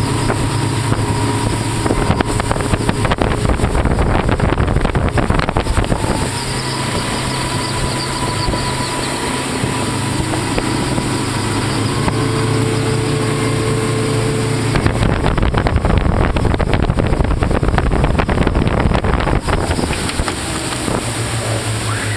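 Twin Honda 200 hp four-stroke V6 outboards running steadily at cruising speed, a low hum under a loud rush of wind and water. The rush swells for a few seconds about two-thirds of the way through.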